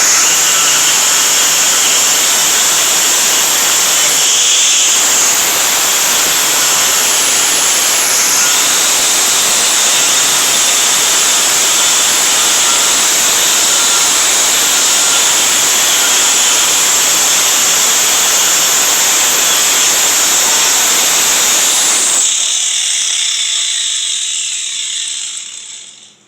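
Angle grinder grinding rust off truck-bed sheet metal, a loud steady whine with a grinding hiss. About 22 seconds in it is switched off and its whine falls as it spins down.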